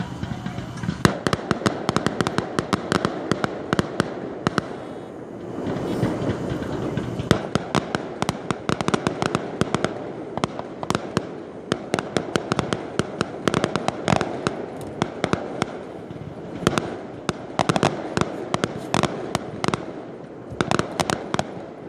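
Aerial fireworks display: a rapid string of bangs and crackling from bursting shells, going on almost without a break from about a second in.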